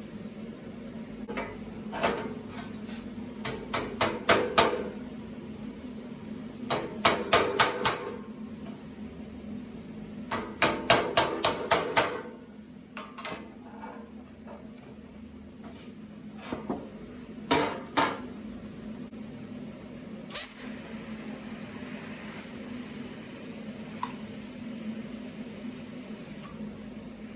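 Runs of quick, sharp metal taps, several strikes at about five a second, repeated a handful of times, typical of hammering sheet steel in body work. A steady hum continues underneath.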